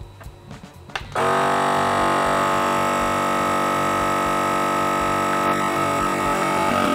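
Home non-chamber vacuum sealer: a click about a second in, then its vacuum pump starts and runs with a steady hum, drawing the air out of a bag of meat before sealing.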